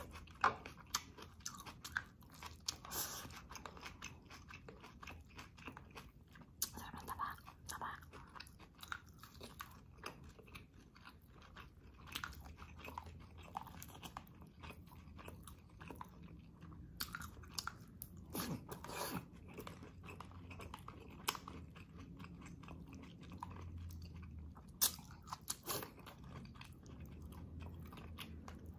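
A person chewing and smacking soft food close to the microphone, with many irregular sharp mouth clicks, while eating catfish and radish from tamarind soup by hand.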